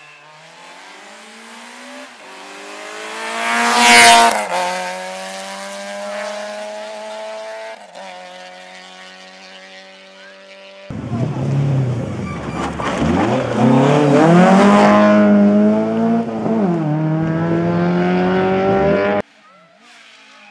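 Rally car engines at full throttle. First a car rises to a loud pass-by about four seconds in, its pitch dropping as it goes away; then, after a sudden jump in level, another hard run with the revs rising and dipping twice through gear changes, cut off abruptly near the end.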